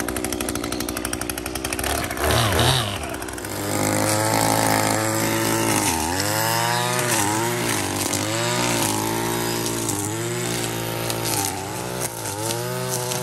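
Chainsaw engine running hard. From about four seconds in, its pitch repeatedly drops and climbs back, roughly once a second.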